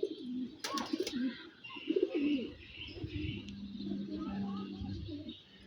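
Domestic pigeons cooing, a run of low wavering coos, with faint higher chirping around the middle.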